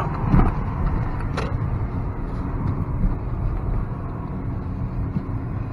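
Diesel car's engine and road rumble heard from inside the cabin at low speed, with two sharp clicks in the first second and a half.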